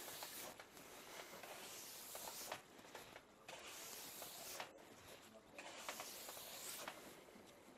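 Faint hissing strokes of the base of a cross-country ski being polished by hand, one long pass about every second, from tip to tail. This is the final polish of the bare base after the wax has been cleaned out of its structure.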